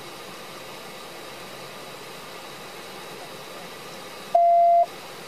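A single loud electronic beep at one steady mid pitch, about half a second long, a little over four seconds in; the background cuts out while it sounds. Around it is the steady low hiss of the idling patrol car.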